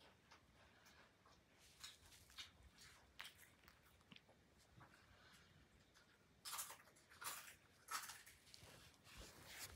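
A kitten sniffing right at the microphone: scattered faint clicks, then a few louder short snuffling bursts about two-thirds of the way through.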